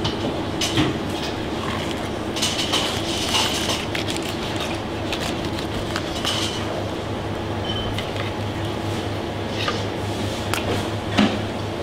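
Filleting knife scraping and clicking against a plaice's flesh and bones and a plastic cutting board as the fillet is cut free, over a steady low hum.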